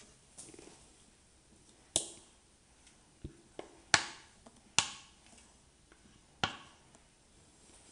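About six sharp metallic taps and knocks on an aluminium mixing bowl as cake batter is poured and scraped out of it into a baking tin, each with a short ringing tail. The loudest come about two and four seconds in.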